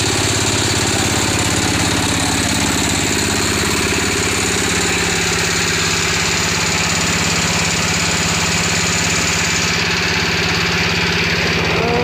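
Small stationary single-cylinder diesel engine running steadily with a fast, even chug, driving a 3-ton winch through a belt, worm gearbox and chain drive.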